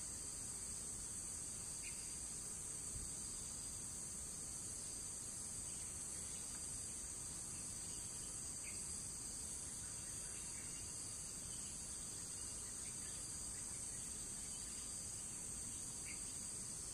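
Steady, high-pitched chorus of forest insects, with a few faint short chirps now and then.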